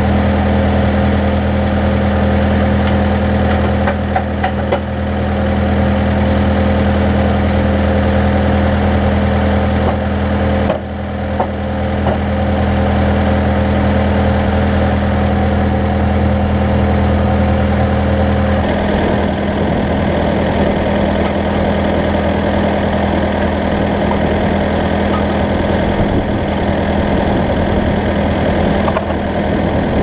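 John Deere tractor's diesel engine idling steadily while a snowplow is pinned to its hitch. The deepest part of the hum drops away about two-thirds of the way through, and there are occasional light clinks of metal from the hitch pins.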